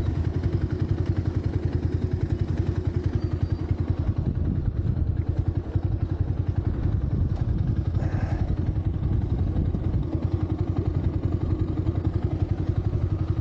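Scrambler motorcycle engine idling steadily with an even, rapid pulse and no revving.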